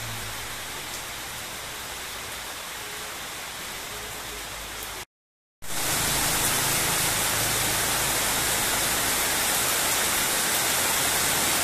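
Steady hiss of rain falling. A little after five seconds it cuts out for a moment, then returns as a louder, denser downpour of heavy rain.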